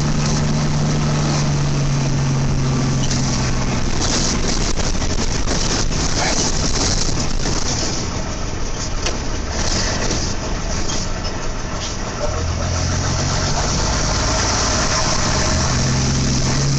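Bus engine running, a steady low hum under a broad rushing noise, dipping a little in the middle.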